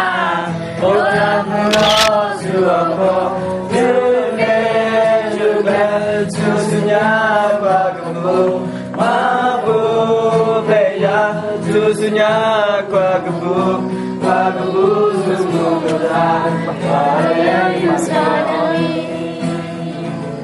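Background music: a song with voices singing a melody over a steady instrumental accompaniment.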